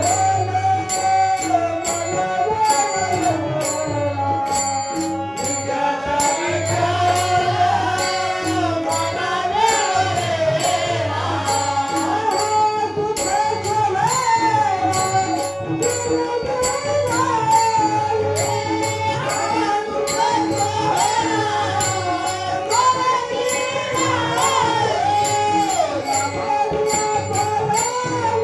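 Marathi devotional abhang performed live: a melody that bends up and down over a held drone, with tabla and evenly repeated sharp metallic strikes keeping the beat.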